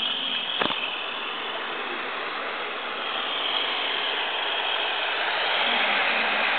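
A malfunctioning iMac making a continuous rustling, rattling hiss after its startup chime, with a single click about half a second in. This abnormal noise runs until the machine is shut down, and the owner suspects the hard drive rather than the fan.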